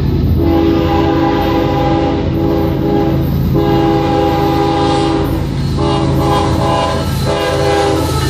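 Diesel freight locomotive's air horn sounding a series of about five chord blasts, the later ones shorter, as it approaches for the grade crossing. Under the horn is the steady rumble of the diesel engine, and the wheels and cars come up loud near the end as the locomotive passes close by.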